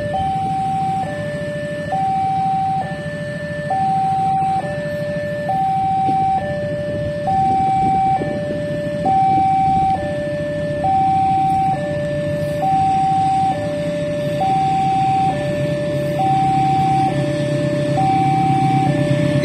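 Railway level-crossing warning alarm sounding a steady electronic two-tone, alternating high and low notes just under a second each. Under it is the low rumble of a departing train.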